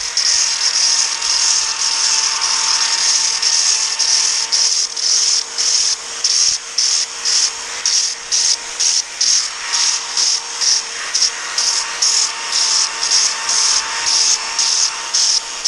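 Cordless drill spinning a sanding disc against the charred wood of a carving, lightly sanding the burnt surface while leaving the dark spots in the crevices. The motor whines steadily, and the scratch of the disc on the wood pulses about two to three times a second as it passes over the ridged surface.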